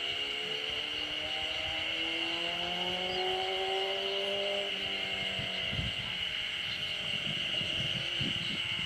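An engine hum whose pitch rises slightly and then falls away over a few seconds, over a steady high-pitched whine. A few low knocks come in the second half.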